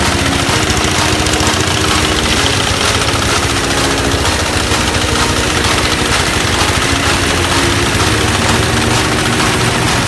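Small engine driving a rice threshing machine, running steadily with a fast, even beat.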